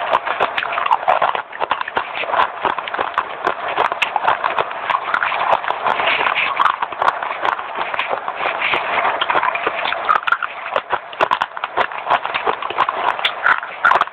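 A person chewing pieces of clay, a fast, dense run of crunches and crackles.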